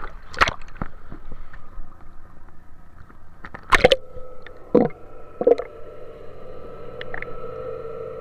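Sea water splashing and sloshing over a camera at the surface, with sharp splashes at the start and again near four seconds as it goes under. Underwater, a muffled steady hum takes over, broken by a couple of bubbling gurgles.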